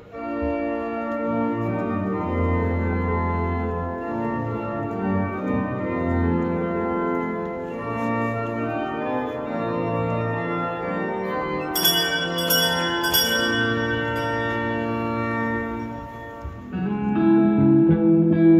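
Pipe organ playing slow sustained chords that change every second or two. Near the end it gives way to louder guitar music.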